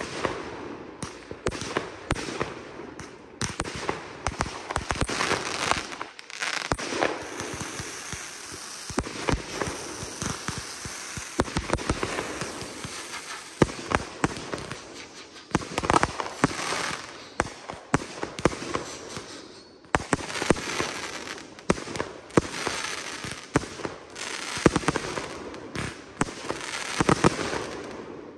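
Consumer 1.4G aerial fireworks firing in rapid succession: a dense string of launches and bursting bangs. The firing eases briefly about six seconds in and again about twenty seconds in.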